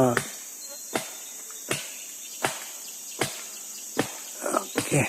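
Chopping strokes of a blade into wood, repeated at a steady pace of about one sharp knock every three-quarters of a second, from clearing a felled tree. Underneath runs a steady high chirring of forest insects.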